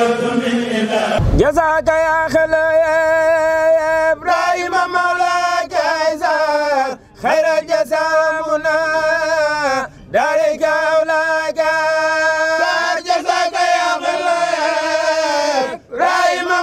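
A man singing a religious chant in long, drawn-out phrases whose pitch bends and wavers, pausing briefly every few seconds. About a second in, the sound cuts abruptly from the title card's chant to this singing.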